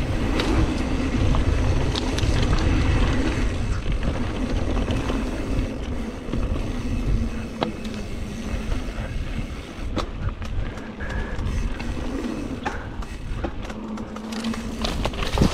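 Mountain bike riding down a dirt singletrack: tyres rolling over dirt and the bike rattling over bumps, with a few sharp knocks, under heavy wind rumble on the handlebar camera's microphone.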